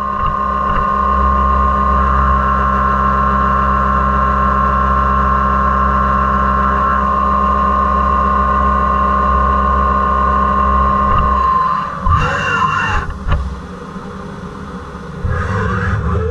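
CNC mill face-milling a 6061 aluminium block dry, with no coolant or air blast, using an indexable face mill. The cut gives a steady singing tone over the hum of the spindle. About twelve seconds in the tone stops as the cutter leaves the cut, and shorter uneven mechanical sounds follow.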